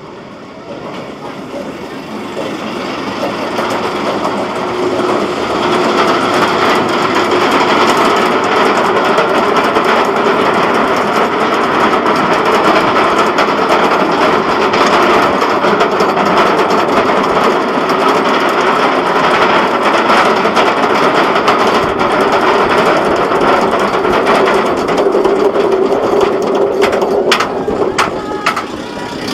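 A Bolliger & Mabillard wing coaster train running at speed along its steel track, its wheels rumbling with wind rushing past. The noise builds over the first few seconds as the train picks up speed, holds steady with a faint hum, and eases near the end with a few sharp clicks.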